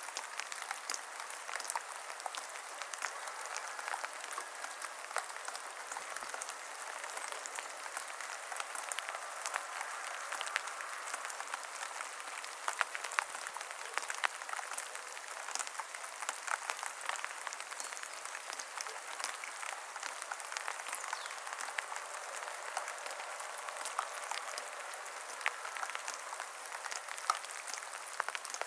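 Steady rain falling in a forest: a dense, even patter of countless drops, with sharper single drips ticking through it.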